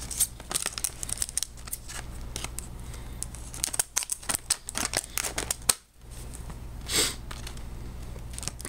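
Scissors cutting into a stiff plastic clamshell blister pack while hands work it open: irregular sharp snips, clicks and crackles of the hard plastic.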